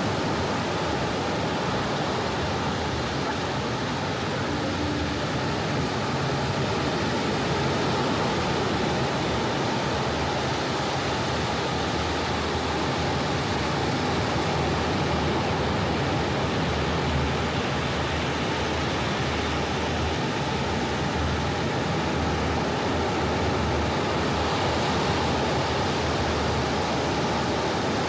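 Steady, even wash of sea surf on a beach, with no single wave crash standing out.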